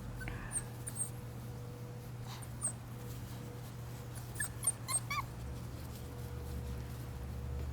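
Miniature schnauzer puppies whimpering in short, high squeaks: a couple about half a second to a second in, one near the middle, and a quick run of them around five seconds in.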